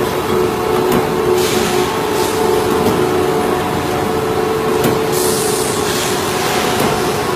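Double-head punching machine running: a steady machine hum with a rattle, and two hisses of about a second each, some four seconds apart.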